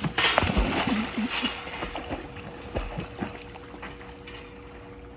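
A dog jumping into a swimming pool: a big splash about a quarter second in, then water sloshing and splattering that dies away over the next couple of seconds.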